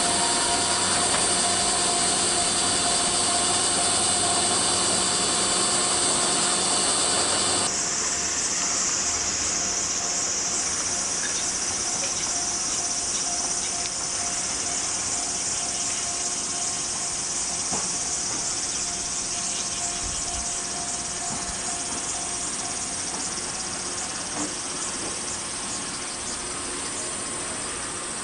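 Summer cicadas drone in a dense, steady, high-pitched hiss. For the first several seconds a parked Nishitetsu electric train hums steadily beside the platform, then the sound cuts to a more open scene where a train pulls into the station in the distance.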